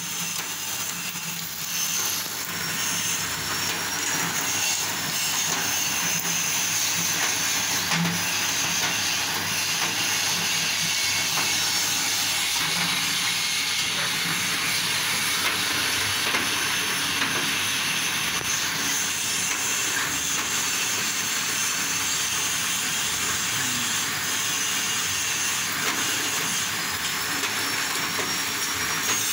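Bamboo-shaving machine for satay skewers running steadily, making a continuous high noise that holds level throughout.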